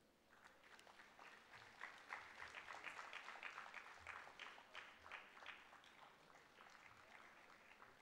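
Faint audience applause. It starts about half a second in, is fullest around the middle and thins out near the end.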